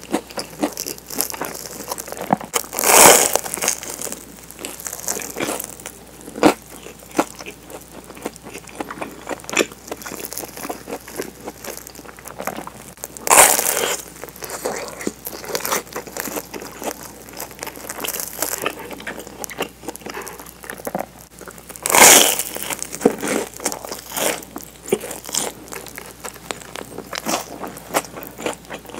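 Close-miked eating of a toasted mozzarella cheese sandwich: three loud crunches of bites into the toast, roughly ten seconds apart, with chewing between them.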